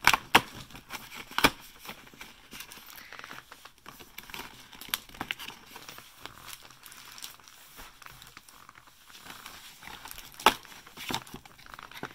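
Perforated cardboard door of an advent calendar being pushed in and torn open: crinkling and scraping of card with a few sharp snaps, the loudest near the start and again near the end.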